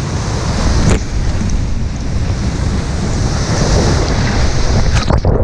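Rushing whitewater around a kayak running a waterfall, heard close from a camera on the boat, with heavy wind buffeting the microphone and a couple of sharper splashes. The sound cuts off suddenly near the end.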